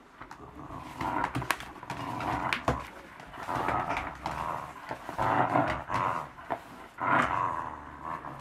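Puppy growling in about five short bouts while chewing and tugging at something, with a few sharp clicks between the growls.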